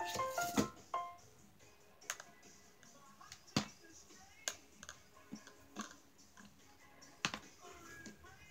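Cardboard packing insert rubbing and squeaking as it is pulled up out of the box in the first second, then scattered light clicks and taps of hands handling a small plastic rice cooker and its lid.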